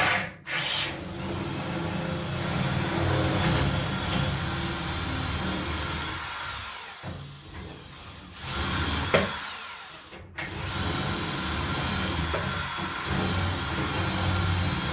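Electric drill with a metal bit drilling into the lock barrel of a filing cabinet. The motor runs steadily under load, easing off twice and cutting out briefly about ten seconds in before starting again.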